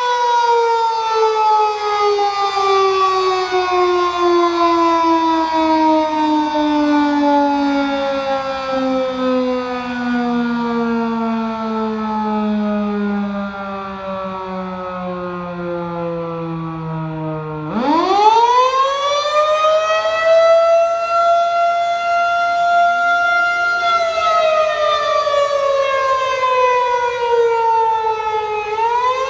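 Federal Signal 2001-130 rotating outdoor warning siren sounding a wavering attack signal. Its wail slides slowly down in pitch for more than half the time, swings sharply back up, holds steady for several seconds, then falls and starts climbing again near the end.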